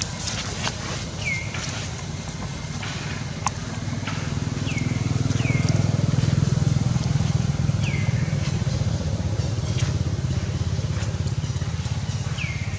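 Low, steady motor-vehicle engine rumble that grows louder about four seconds in and then holds. Short high chirps falling in pitch come every few seconds, often in pairs.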